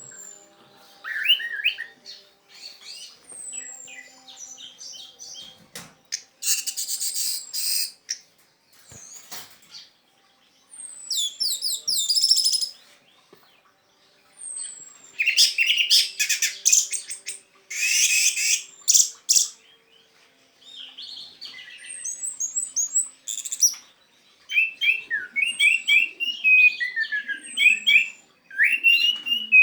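Orange-headed thrush (anis merah) in full 'teler' song: long, varied phrases of rich warbles and rapid trills broken by short pauses, with a thin high downslurred whistle repeated between phrases.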